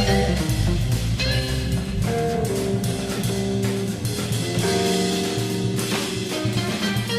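Background music with guitar and drum kit playing a steady beat.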